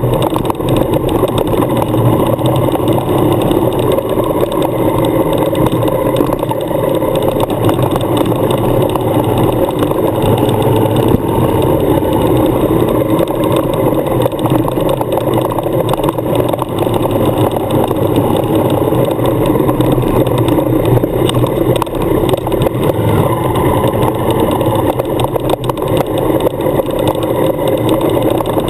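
Suzuki adventure motorcycle engine running steadily at low speed on a leaf-covered gravel road, with tyre and road noise.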